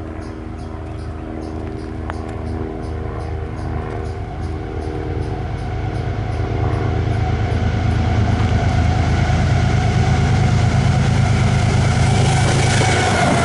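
Train approaching, its low rumble growing steadily louder. A fast, even high ticking, about three a second, fades out about six seconds in.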